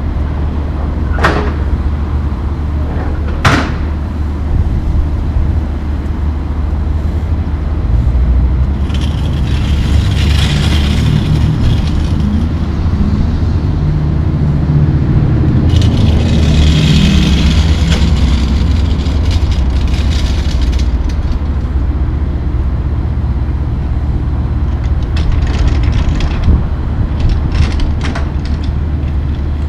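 Steady low rumble of an idling diesel engine. Two sharp clacks come in the first few seconds, two stretches of rushing hiss fall in the middle, and a run of light clacks comes near the end.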